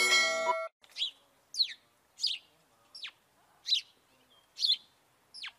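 A bird chirping: single short chirps that fall quickly in pitch, seven in all, spaced a little under a second apart. The last notes of a music jingle stop about half a second in.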